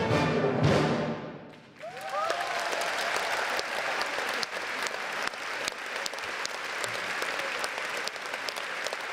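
A symphony orchestra ends a piece on a loud final chord that dies away, and about two seconds in a concert hall audience breaks into steady applause.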